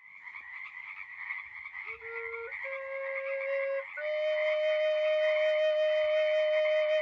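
A chorus of frogs calling steadily. About two seconds in, a flute-like wind instrument joins, holding long notes that step up in pitch twice; the last, highest note is the loudest.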